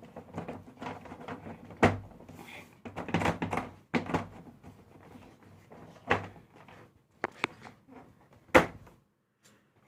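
Knocks and clunks of a plastic MIDI keyboard casing being handled and set down during reassembly, with three sharp knocks standing out, about two, six and eight and a half seconds in.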